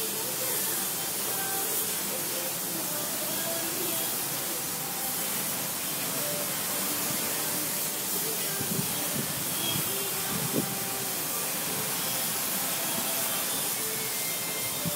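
Steady hiss, with a few soft knocks about nine to ten and a half seconds in.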